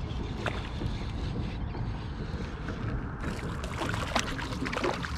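Steady wind rumble on the microphone over open water around a kayak. From about three seconds in comes a flurry of sharp splashes and clicks as a small hooked speckled trout is brought to the kayak.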